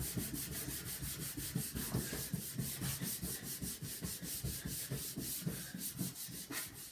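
A sponge scrubbing a plastic computer case in fast back-and-forth strokes, several a second, a steady scratchy rubbing that stops near the end.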